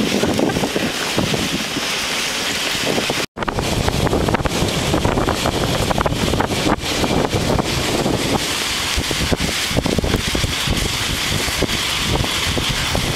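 Dogsled moving downhill over snow: a steady rushing hiss and scrape from the runners and the moving sled, with wind buffeting the microphone. The sound cuts out for an instant about three seconds in.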